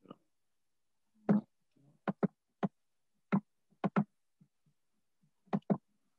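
Computer keys and mouse being clicked, about nine short separate clicks with silence between them, several in quick pairs, as a slide presentation is started.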